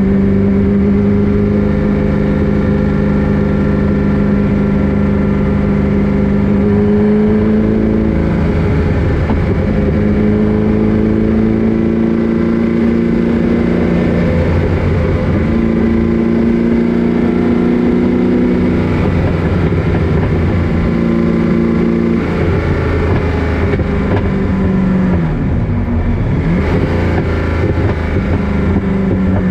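Roush 427 V8 of a Superformance Ford GT40 Mk II, heard from the passenger seat, running steadily under moderate throttle. The note climbs slowly, then drops back and picks up again several times, with a quick dip and rise near the end.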